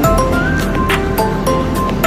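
Background music with a steady beat: short melodic notes over regular drum hits.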